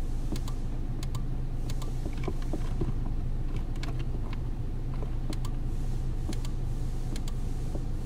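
Hands pressing and pushing on the plastic body control module box under the dash, making faint irregular clicks and taps over a steady low hum.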